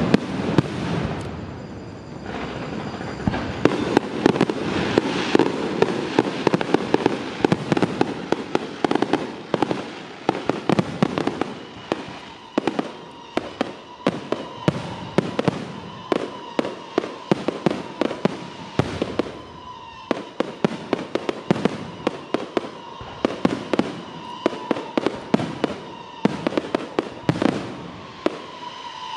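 Fireworks display: aerial shells bursting in a continuous barrage of sharp bangs, several a second. The bangs run together into a dense wash for a few seconds near the start, then come as distinct reports.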